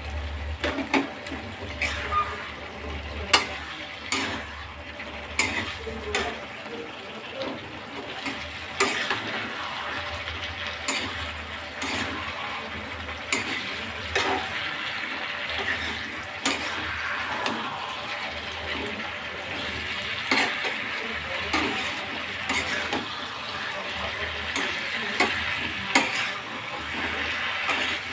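A metal spatula stirring and scraping around a wok, with frequent clicks against the pan, over a steady sizzle of chicken pieces, onions and capsicum frying in oil.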